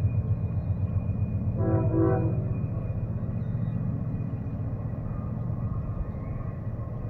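A diesel freight locomotive's air horn sounds two short blasts about two seconds in. Under it runs the steady low rumble of a passing freight train, which eases off slightly afterwards.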